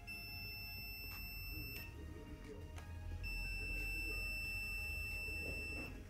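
A steady, high-pitched electronic beep held for nearly two seconds, then, after a short gap, sounding again for almost three seconds, over a low hum.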